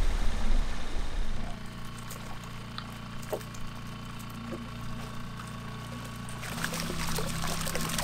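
Water rushing that dies down about a second and a half in, leaving a steady low machine hum with a few small clicks; splashing water noise builds again near the end.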